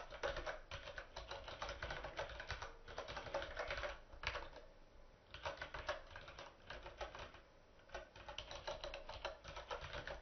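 Computer keyboard typing in quick runs of keystrokes, with short pauses about four and a half seconds in and again near eight seconds.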